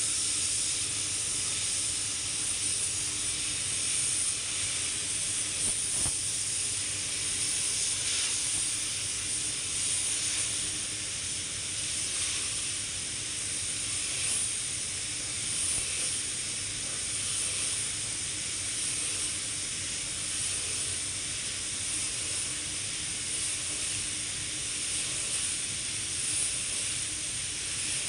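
Compressed-air gravity-feed paint spray gun hissing steadily as it sprays white paint onto a car door, with a faint steady low hum underneath.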